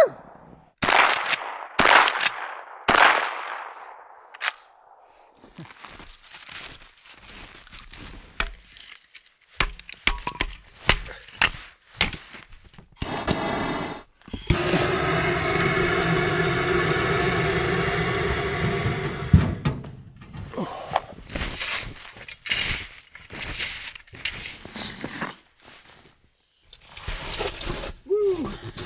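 A 12-gauge shotgun fired three or four times about a second apart, each shot echoing. About halfway through, a handheld gas torch hisses steadily for about five seconds, with scattered knocks and clicks before and after.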